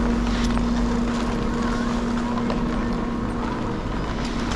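Chairlift machinery running with a steady hum, with wind rushing over the microphone.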